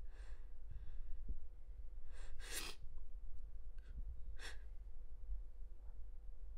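A person breathing and sniffing: several short, sharp breaths in, the strongest about two and a half seconds in, over a faint steady hum.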